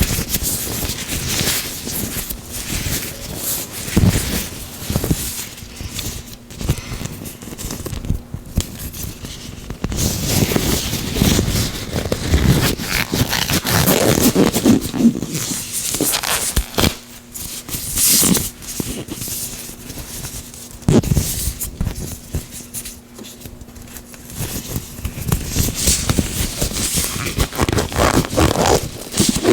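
Gloved hands rubbing and working oil close to the microphone: irregular slick rubbing, scraping and crackling, broken by several sharp clicks.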